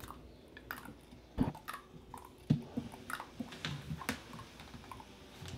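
Chocolate Labrador retriever puppy chewing and mouthing, a few soft scattered wet smacks and clicks.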